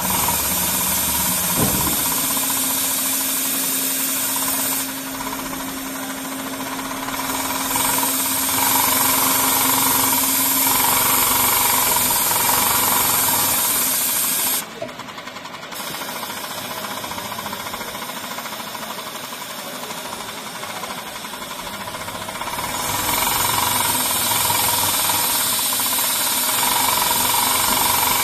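Heavy-duty mattress tape edge sewing machine with a 300U head running at speed, a rapid mechanical rattle. It briefly goes quieter about five seconds in, drops out for about a second midway, then picks up again.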